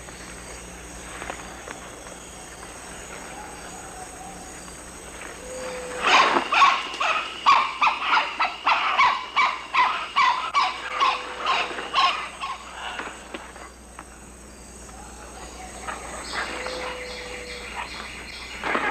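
Forest ambience with a steady high insect-like drone and a few faint short whistles. About six seconds in, a wild animal calls loudly in a rapid series of harsh pitched notes for about seven seconds; weaker calls come again near the end.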